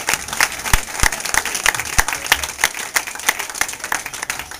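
Audience applauding: many hands clapping in a dense, uneven patter in a small room.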